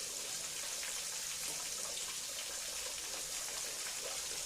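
Tahu isi (stuffed tofu) deep-frying in hot oil: a steady sizzle.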